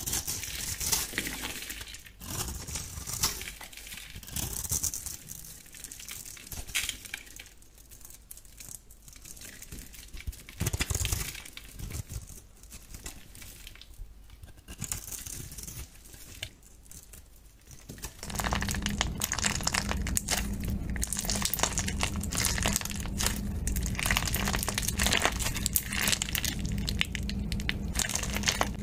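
A knife cutting and scraping a bar of soap, a dry scratchy scrape with each stroke and pauses between strokes. About eighteen seconds in it changes to clear slime full of small plastic beads being squeezed and stretched, a dense, continuous crackle.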